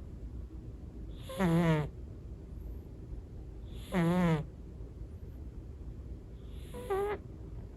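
A sleeping cat snoring: three snores about two and a half seconds apart, each a short wavering buzz.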